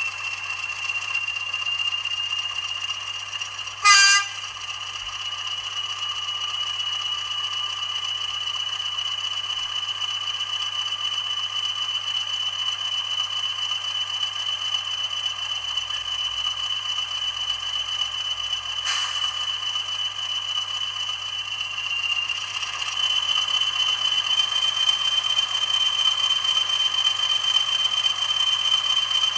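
Sound decoder of a Bachmann Class 20 diesel model playing a Class 20 English Electric engine through its small onboard speaker: a steady engine run with a high whine, with one short horn toot about four seconds in. Later the engine note steps up in pitch and gets louder, as if the engine is being notched up.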